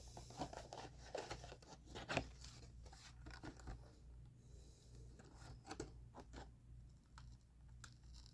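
Faint scratching and tearing of a small, cheap multi-use knife blade being worked through material in short, uneven cutting strokes, with the blade only partly biting.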